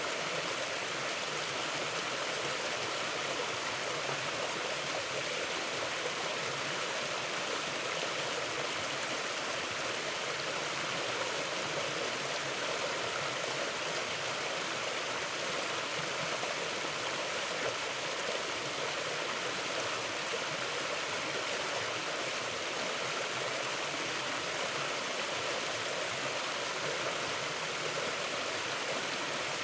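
Mountain river flowing over rocks: a steady, even rush of running water with no change in level.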